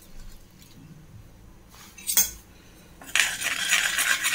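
A steel spoon clinks once against a stainless steel bowl, then from about three seconds in stirs and scrapes around the bowl through red chilli powder frying in hot groundnut oil.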